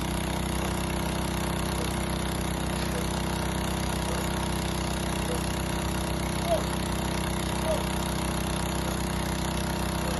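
An engine running at a steady, unchanging speed, with two brief short chirps about six and a half and seven and a half seconds in.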